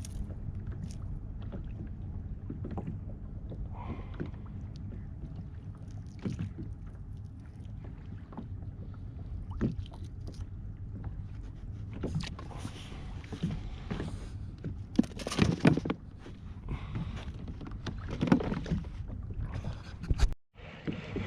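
Sounds aboard a fishing kayak on the water: irregular knocks, clicks and sloshing against the hull over a steady low rumble, with a few louder knocks about two-thirds of the way through.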